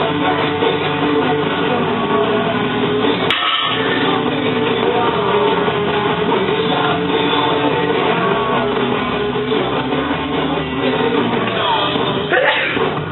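Rock music with guitar playing, with a short loud burst of noise near the end.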